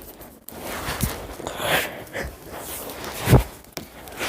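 A person moving about and handling things: scattered rustling and light knocks, with one louder thump a little over three seconds in.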